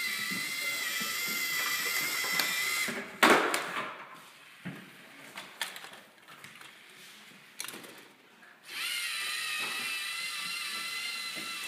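LEGO robot's electric motors and gears whining as it drives. About three seconds in there is a loud knock, then a few quieter seconds with scattered clicks and knocks, and the motor whine starts up again near the end.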